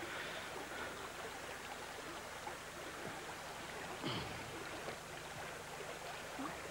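Faint, steady rush of flowing river water, with one short sound falling in pitch about four seconds in.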